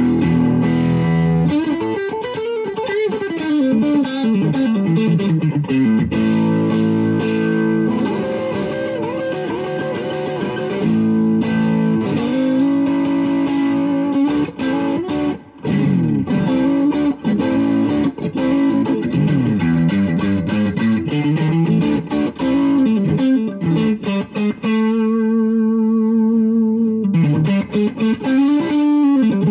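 Electric guitar, a Fender Stratocaster, played through a BJFE Arctic White Fuzz pedal into a Tone King Imperial MkII amp: a lead line with string bends and held notes. About 25 seconds in, the tone turns darker for a couple of seconds before brightening again.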